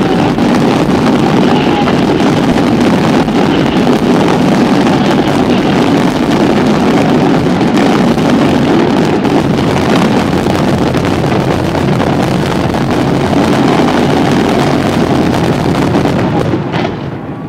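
Fireworks barrage: a dense, continuous rumble of many aerial shells bursting together, with no single bang standing out. It dies away near the end.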